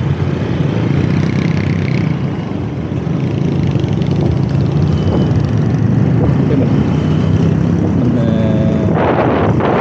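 Motorbike engine running as it pulls away from a stop and rides across an intersection, among other motorbikes in traffic. Near the end, wind noise on the microphone rises sharply as speed picks up.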